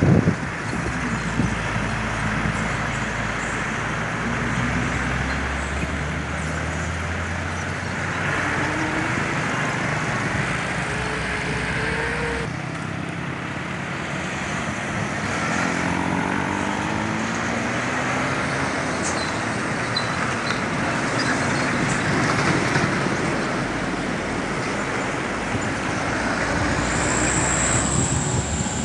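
Passing road traffic: diesel truck engines pulling and motorcycles going by, with engine notes rising several times as the vehicles accelerate.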